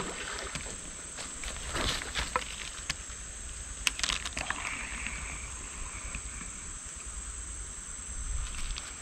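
Handling noise from a spinning rod and reel held close to the microphone, with a few light clicks and knocks, over a steady high hiss.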